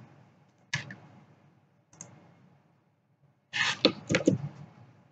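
Computer mouse clicks: one sharp click about a second in, a faint one near two seconds, and a quick run of several clicks around three and a half to four and a half seconds.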